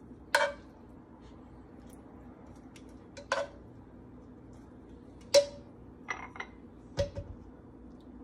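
Metal tongs clinking against a nonstick frying pan and ceramic serving bowls as sautéed spinach is dished out: a handful of separate sharp knocks a second or two apart, over a faint steady hum.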